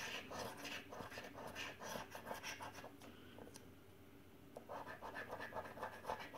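A coin scratching the coating off a £2 paper scratchcard in quick, repeated strokes, easing off a little past halfway and starting again about a second later.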